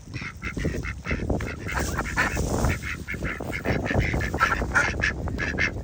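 Ducks calling in a quick, continuous run of short quacks, several a second.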